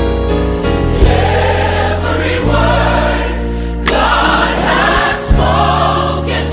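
Gospel choir singing over a full band, with sharp drum or cymbal hits about a second in, near four seconds and again past five seconds.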